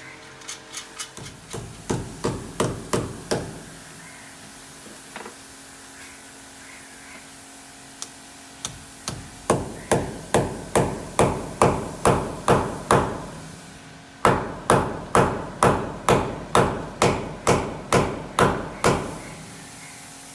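Hammer blows struck again and again, each with a short ring, about two to three a second. They come in three runs: a short one at the start, and two longer ones from about eight and about fourteen seconds in.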